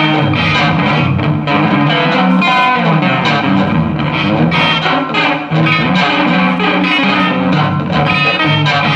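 Electric guitar played through effects, with layered loops: dense overlapping notes in a free improvisation, with some distortion.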